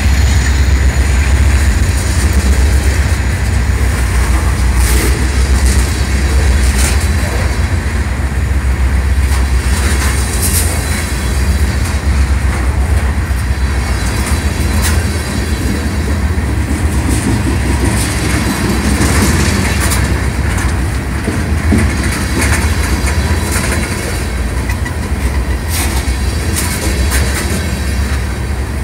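Freight cars rolling past on the rails, with a steady rumble and scattered clicks and clacks of the wheels over the rail joints. A low diesel drone from the locomotives that have just passed fades away over the first half.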